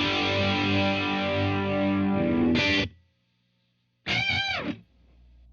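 Distorted electric guitar through a Blackstar Studio 10 6L6 valve amp: a sustained chord ringing, then cut off about three seconds in. A brief vocal sound follows about a second later.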